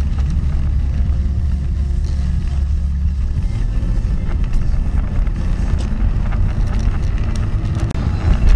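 Car driving, heard from inside the cabin: a steady low rumble of engine and road noise, which breaks off for a moment near the end.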